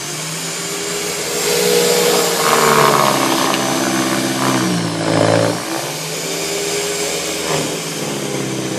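Corded electric snow thrower running with a steady motor whine, its pitch sagging and recovering several times as it bites into the snow, over the hiss of snow being thrown.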